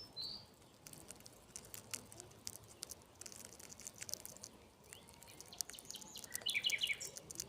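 Small birds chirping: a short chirp at the start and a quick run of falling notes near the end, which is the loudest part. Faint scattered clicks fill the first few seconds.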